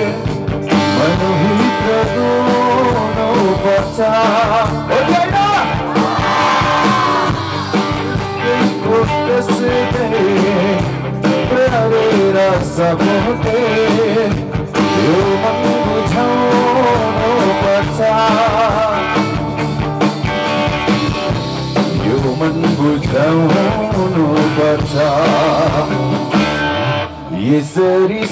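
A rock band playing live, a singer over electric guitar and drums.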